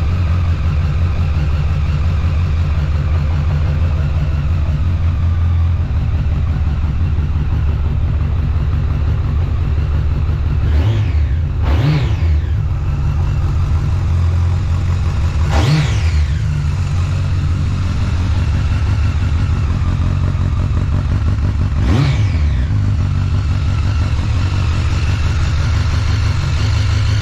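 Honda Blackbird's inline-four engine idling through a Black Widow aftermarket exhaust, with four short throttle blips that rise and fall back to idle, two close together about halfway through, then one about four seconds later and one more near the end. The owner takes the engine to be running too rich.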